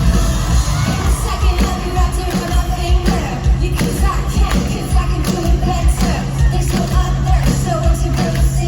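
Live concert music played loud through a PA: singing over a heavy bass-driven backing track, with a held low bass note in the second half.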